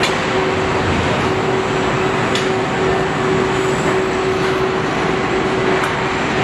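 Steady machinery noise of a car body assembly line: a constant hum with a held mid-pitched tone, and two brief sharp ticks, one about two and a half seconds in and one near the end.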